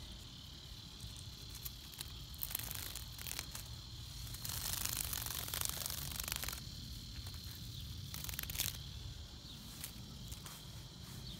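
Crackling, rustling handling noise from a phone being moved about close to its microphone, louder for about two seconds in the middle, over a faint steady high-pitched drone.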